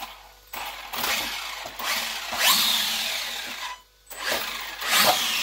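Electric motor and drivetrain of an RC monster truck revved under throttle in two bursts, a whine rising in pitch; the first burst lasts about three seconds and the second starts about four seconds in.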